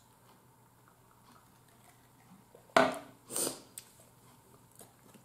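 A fork working through pasta in a bowl: faint small clicks, then two brief, louder scrapes close together about three seconds in.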